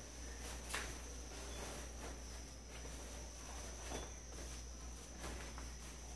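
Clothes being handled as they come off a washing line and are shaken out: fabric rustling with a few light clicks, over a steady high-pitched tone.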